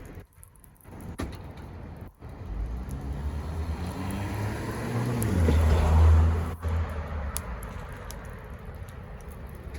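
A motor vehicle passing by: a low engine rumble that builds to its loudest about six seconds in, its pitch dropping as it goes past, then fading.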